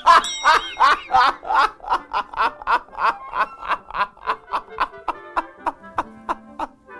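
A man laughing hard in a long fit of rapid "ha-ha-ha" bursts, about three a second, that weaken over the last couple of seconds.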